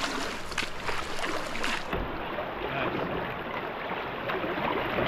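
Fast river water rushing and splashing around a canoe being paddled, with short splashes from the paddle strokes.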